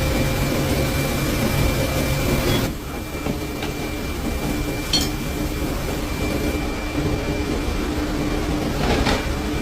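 A machine running steadily with a whirring hum and a faint high whine; the hiss drops away about three seconds in, and there are a couple of light clicks.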